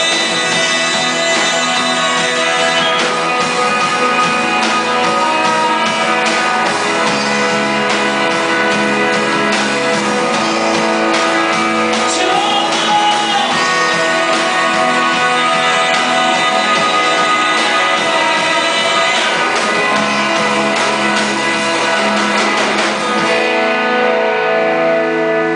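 Live worship band playing a song with guitars and singing. Near the end the full band drops away, leaving a held chord ringing.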